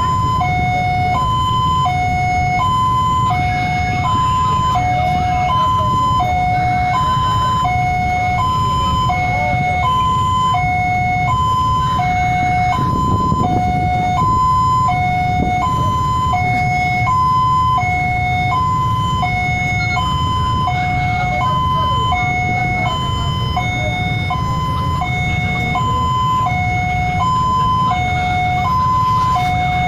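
Railway level-crossing warning alarm sounding a steady electronic two-tone chime, a high tone then a lower one, repeating about every second and a half: the signal that the barrier is down and a train is approaching. A low steady rumble runs underneath.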